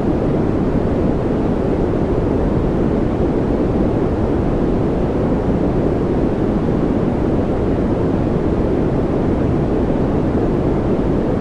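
Steady relaxation noise track, a continuous even rush weighted deep and low, with little high hiss and no changes.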